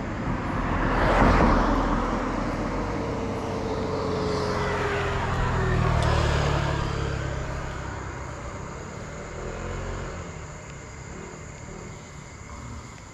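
Road traffic passing: a vehicle goes by loudest about a second in, then a second one swells around six seconds, its engine pitch falling as it moves away, and fades out.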